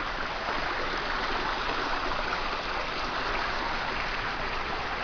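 Cascading mountain water rushing steadily, an even hiss with no breaks.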